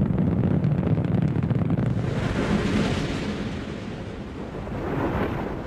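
Atlas V rocket engines during ascent: a deep, crackling rumble that fades away over the second half.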